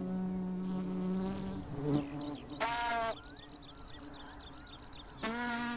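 Wing buzzing of male cellophane bees (Colletes): a steady low buzz for about the first second and a half, then two short, louder buzzes about two and a half seconds apart, the characteristic buzzing that accompanies mating. Birds chirp faintly in the background.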